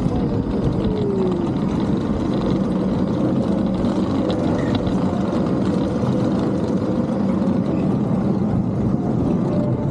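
Small ride-on tank kart running steadily as it drives along a dirt track, with a faint falling whine in the first second and a half.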